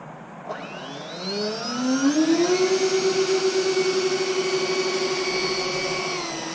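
Four 70mm electric ducted fans on a large RC 747 model spooling up together as the throttle opens for takeoff: a whine of several close pitches that rises over about two seconds and then holds steady. Near the end the pitch drops slightly as the throttle is eased while the plane rolls.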